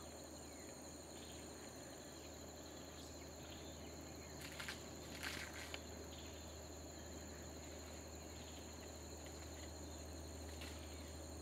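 Faint ambience: a steady high-pitched insect drone, with a few soft knocks about four to six seconds in.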